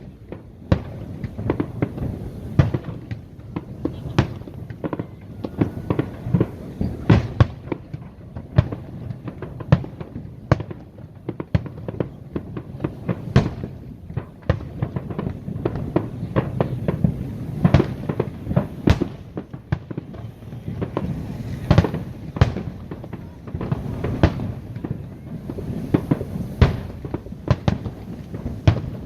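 Aerial fireworks display: a dense, irregular run of bangs and booms, several a second at times, over a continuous low rumble and crackle.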